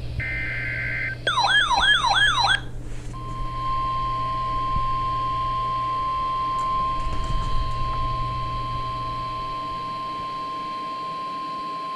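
NOAA Weather Radio alert signalling a new warning: a brief burst of SAME digital header data tones, then a quick warbling siren-like sweep repeated about four times, then the steady single-pitch 1050 Hz weather-radio alert tone held for about nine seconds. A steady low hum from the radio reception lies underneath.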